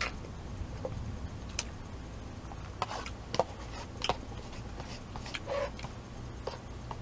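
A person eating noodle soup: about ten short, scattered mouth clicks and smacks from chewing, with no slurp, over a low steady hum.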